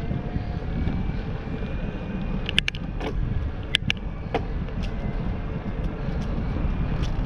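Wind buffeting the microphone and tyre rumble as a mountain bike rolls downhill on asphalt. A few seconds in come a handful of sharp clicks and rattles from the bike.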